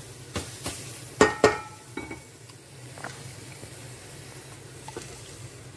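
Metal cookware being handled: a couple of light knocks, then two sharp ringing clanks about a second in, over a steady low hum, with only faint clicks after.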